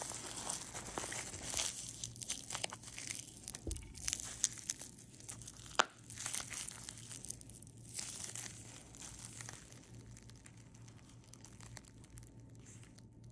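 Bubble wrap being twisted in the hands: plastic crinkling with scattered sharp pops of bursting bubbles, the two loudest pops around the middle. The crinkling and popping thin out and die away over the last few seconds.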